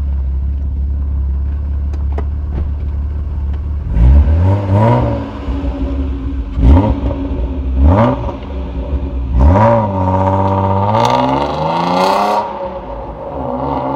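BMW E36 325i straight-six idling, then blipped four times in quick succession. It is then held at higher revs for a couple of seconds before dropping back to idle.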